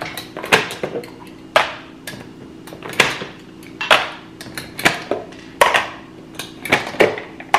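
Clear plastic food-storage canisters being opened and pressed shut while a spoon scoops out dry toppings. A series of sharp plastic clicks and clatters comes roughly once a second.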